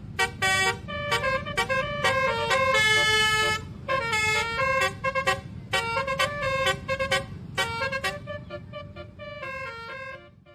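Bus basuri (multi-tone 'telolet' horn) playing a quick melody of short notes, with one longer held chord about three seconds in, over a low engine rumble. The notes thin out and fade near the end.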